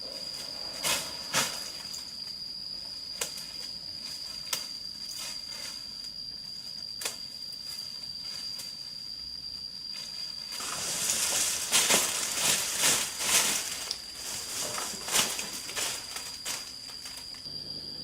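Insects droning on one steady high note, with scattered rustles and light knocks. A louder burst of rustling and knocks lasts a few seconds just past the middle.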